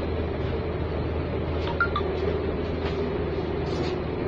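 Steady low mechanical hum with a constant droning tone inside a motorhome, from machinery running on board.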